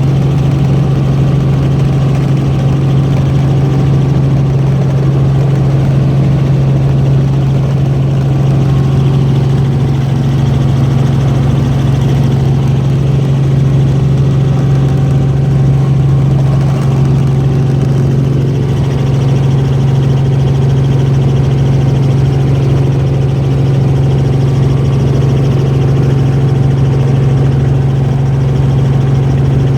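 Helicopter engine and rotors running in flight, a loud, steady low drone heard from inside the passenger cabin.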